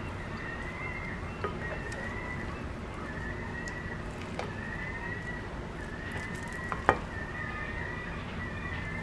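A rice paddle stirring rice and corn in a Staub cast-iron pot, with soft scraping and a few knocks against the pot, the loudest about seven seconds in. A faint, thin wavering high tone runs underneath.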